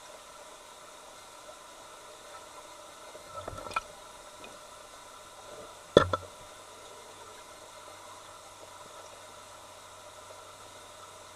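Steady faint hiss of an underwater recording, broken by a short cluster of small knocks a few seconds in and one sharp knock about halfway through, after which a faint low hum lingers.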